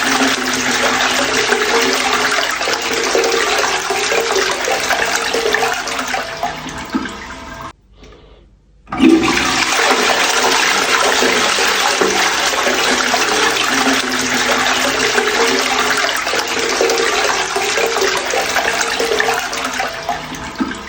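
Toilet flushing: rushing water that tapers off about seven seconds in and drops away briefly, then a second flush starts abruptly about nine seconds in and runs on, easing off near the end.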